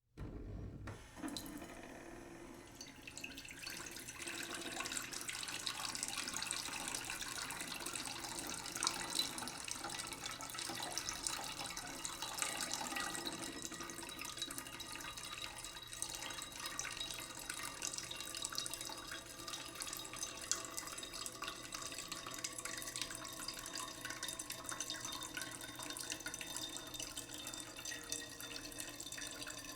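Tap water running slowly into a cooking pot in a sink, a steady splashing stream that starts about a second in.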